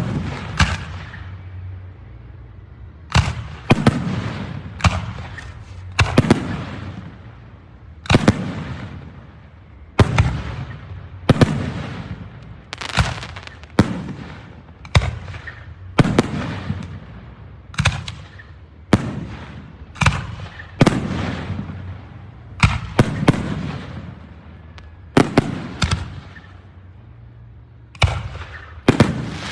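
Aerial fireworks bursting in a steady series of loud bangs, about one every second or two, each with a rumbling echo trailing off.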